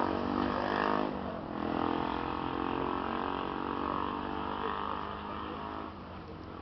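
Motor vehicle engine running nearby; its pitch drops a little after a second in, then holds steady and fades toward the end.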